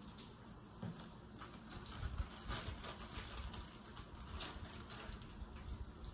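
Breaded chicken tenders frying in hot oil in a pan, the oil sizzling with dense crackling that grows stronger about a second and a half in, and a few dull knocks around two seconds in.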